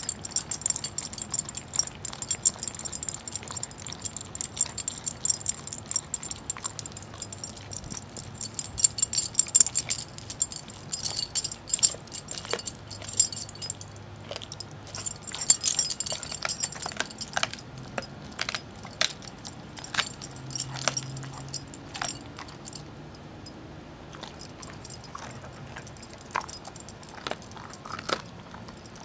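Greyhound gnawing and crunching a raw turkey leg, with irregular sharp cracks and clicks from the bone and meat. The metal tags on its collar jingle as its head works, most densely in the first half.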